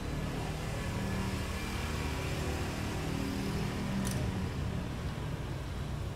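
A motor vehicle engine running steadily, getting a little louder over the first seconds and easing off near the end, with a light click about four seconds in.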